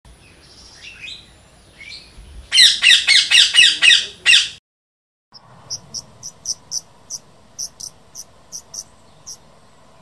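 Monk parakeets calling at the nest: a few scattered chirps, then about two seconds of loud, harsh, rapidly repeated squawks. After a sudden brief cut to silence, a string of short high chirps comes about twice a second over a faint steady hum.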